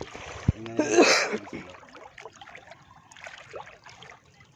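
Water splashing and trickling, loudest about a second in, then fading.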